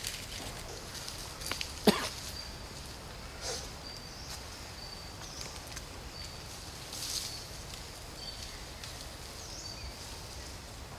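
Outdoor ambience over dry leaf litter: a short, high chirp repeats about once a second, with faint rustling and one sharp snap about two seconds in.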